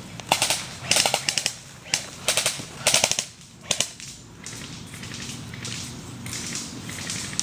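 Airsoft electric guns firing short rapid bursts, several bursts in the first four seconds, each a quick string of sharp clicks.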